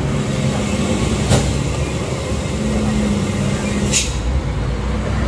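Heavy diesel trucks labouring around a steep hairpin bend: a steady low engine rumble with a held engine tone. Two short sharp noises cut through, about a second and a half in and again about four seconds in.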